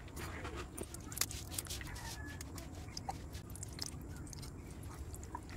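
Faint scattered crackling with light metallic clicks: ghee melting and spitting in a hot miniature iron karai while a small steel spatula spreads it.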